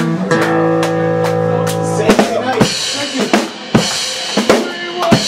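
Live rock band closing out a song: a held chord rings over drum hits for the first two and a half seconds, then the drummer plays a series of loud separate drum and cymbal strikes to finish.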